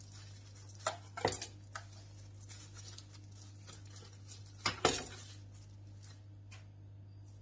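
Knife tapping and knocking on a granite countertop while cutting bread dough into pieces, and a dough piece set into a plastic kitchen-scale bowl. There are a few sharp taps about a second in and a louder double knock past the middle, over a steady low hum.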